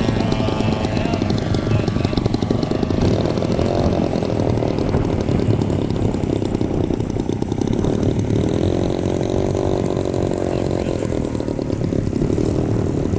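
Engine and propeller of a radio-controlled scale Fw 190 model aircraft running steadily in flight, its pitch shifting up and down as the plane passes and banks.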